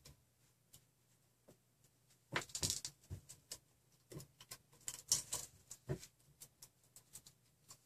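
Plastic zip tie being threaded and pulled snug around a wire connector, with faint clusters of small clicks and rustling of the wires, most busy about two and a half seconds in and again around five seconds.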